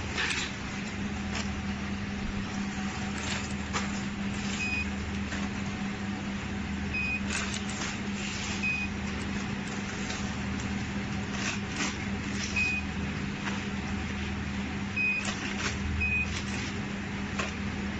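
Steady drone of packaging machinery with a constant low hum, scattered clicks and knocks, and about six short high beeps from the touchscreen control panel as its keys are pressed.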